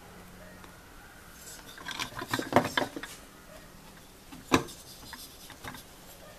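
A metal D8 moped engine handled on a wooden workbench: a spell of scraping and clattering about two seconds in, then one sharp knock, and a few light clicks.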